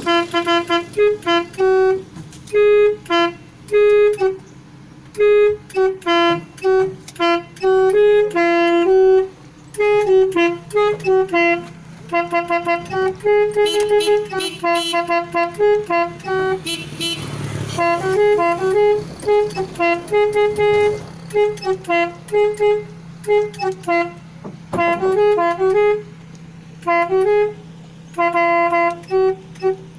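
Telolet multi-tone bus horn playing a quick tune in runs of short notes, with pauses between phrases. A steady low hum runs underneath, and a brief rush of noise comes about halfway through.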